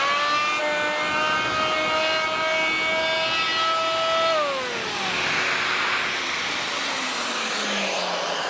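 Fein MultiMaster oscillating multi-tool with a round sanding pad, its motor spinning up to a steady high whine. About four seconds in the pitch drops and a sanding hiss rises as the pad works the surface.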